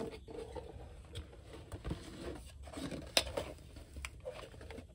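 Cardboard box of press-on nails being opened by hand: the card sleeve sliding off and the inner flaps being lifted, with light scraping and rustling and a few sharp clicks, the sharpest about three seconds in.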